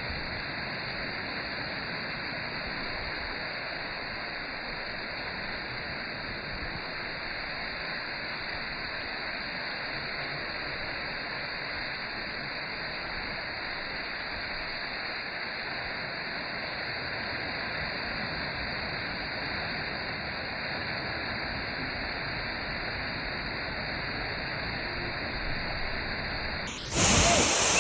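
Steady rush of falling water from Manthoka waterfall, even and unbroken. It turns abruptly louder and brighter about a second before the end.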